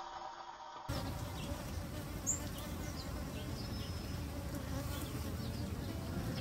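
Many honeybees buzzing steadily, starting abruptly about a second in.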